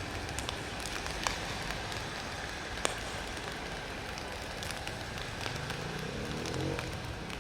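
Distant jet airliner departing: a steady rush of engine noise with scattered crackles and ticks, and engine tones that glide near the end.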